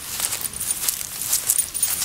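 Irregular light metallic clinking and rustling from dog leash and harness hardware as small dogs trot on grass.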